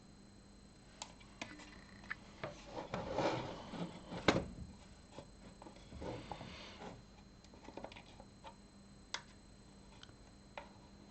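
Scattered light clicks, taps and brief rustles of hands, soldering iron and solder working on a radio circuit board, during reflowing of the power-jack solder joints. There is a louder sharp click a little after four seconds.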